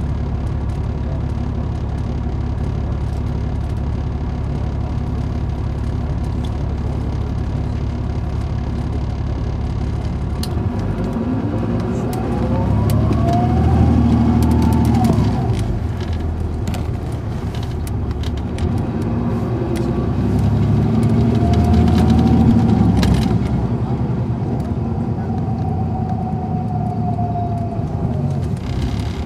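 Caterpillar C13 diesel engine of an MCI D4500CL coach heard from on board, with its Allison automatic transmission. It rumbles steadily at low revs, then about halfway through pulls away with a rising whine. The whine drops back at an upshift, rises again on a second pull and levels off, with knocks and rattles from the body.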